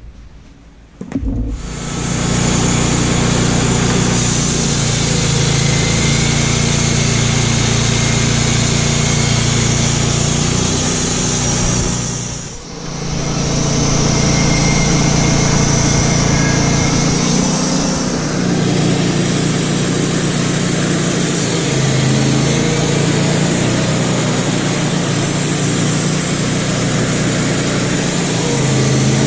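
Wood-Mizer LT35 band sawmill running steadily as its blade saws a cookie slice across a fresh white pine log, starting about a second and a half in with a brief dip about midway.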